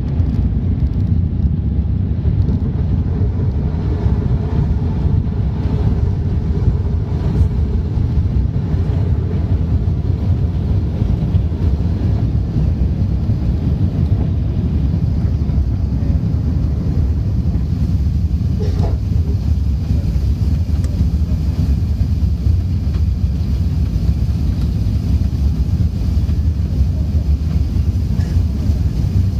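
Steady low rumble of an Airbus A380-800 in its climb, heard inside the cabin: the four Engine Alliance GP7270 turbofans and the airflow past the fuselage.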